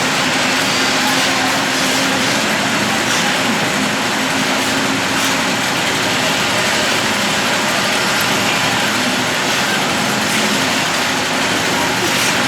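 An engine or motor running steadily, with a humming tone that drops out and comes back several times.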